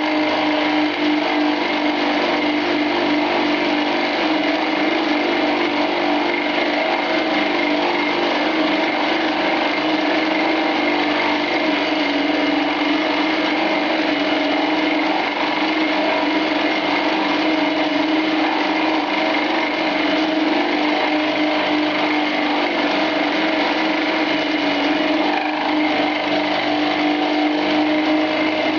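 Small 10 x 18 bench lathe spinning a 20 mm carbide-insert milling cutter at about 2000 RPM, taking a 1.5 mm deep cut in hard medium-to-high carbon steel. The machine gives a steady whine under continuous cutting noise, working hard at a deep cut.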